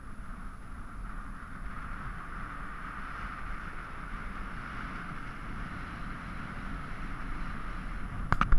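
Steady wind and water noise aboard a moored catamaran, with a quick cluster of sharp knocks near the end.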